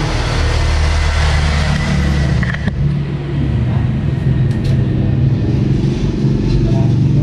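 Steady low engine rumble, with a hiss over it that cuts off about three seconds in.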